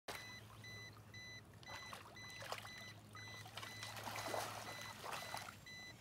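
Water splashing in uneven bursts as a water bird struggles at the surface, a dead catfish lodged in its mouth with the fins caught through its neck. A high electronic beep repeats about four times a second, over a steady low hum.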